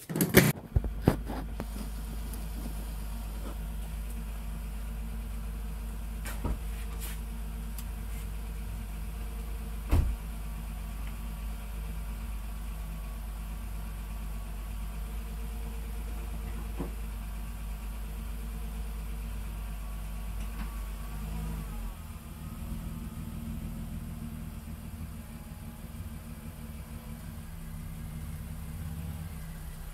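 Nissan Pathfinder's 3.5-litre V6 idling steadily, heard at the rear near the exhaust. A few loud clunks in the first second and a single knock about ten seconds in.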